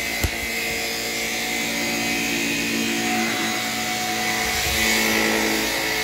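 Shark Rocket Apex stick vacuum with a self-cleaning brush-roll head running steadily on carpet, a steady hum with several steady tones. One short knock just after the start.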